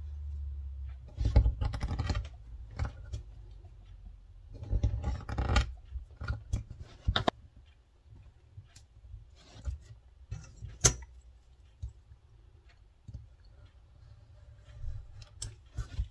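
Small leather pieces and metal hand tools handled on a cutting mat: two spells of scratching about a second long each, then sharp clicks and scattered light taps.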